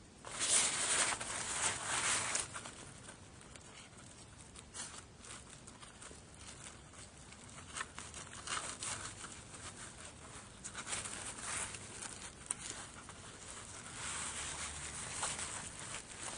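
Rustling and crinkling of a nylon parachute D-bag and cord as hands thread a soft link through the bridle loops. It comes in irregular bursts, loudest in the first couple of seconds.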